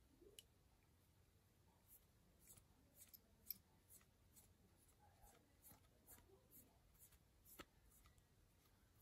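Faint, irregular light clicks, one or two a second, from the knurled ratchet knob and thimble of a Bergeon watchmaker's micrometer being turned by hand as the spindle winds out.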